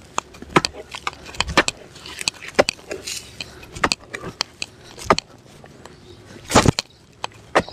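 A hoe chopping into loose, crumbly soil while digging a planting hole: an irregular run of sharp strikes and scrapes, one or two a second, the loudest near the end.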